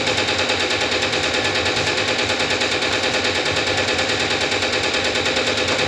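A machine running steadily with a fast, even pulsing, about seven beats a second, and a faint steady hum.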